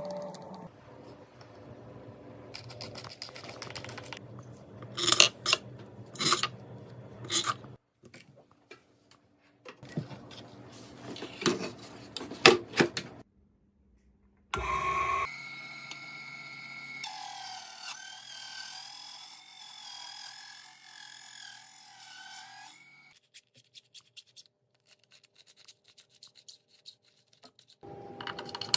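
Clicking, tapping and rubbing of small hard parts being handled, in several separate bursts, with a steady wavering whine through the middle stretch.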